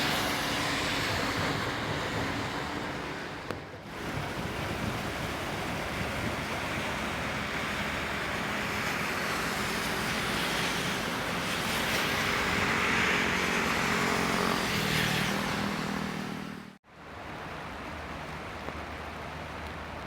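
Steady outdoor rush of traffic noise with the low hum of engines, swelling somewhat in the middle; it cuts out abruptly for an instant about 17 seconds in and goes on quieter after.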